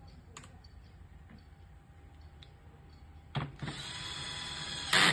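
A small motor, like a power tool's, whirring at a steady pitch for about a second and a half, starting about three and a half seconds in and briefly louder at the very end.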